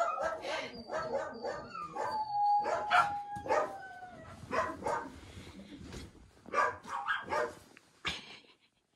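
A puppy whining and yipping: a run of short yips and high whimpers, with one long whine a couple of seconds in that slides down in pitch, stopping shortly before the end.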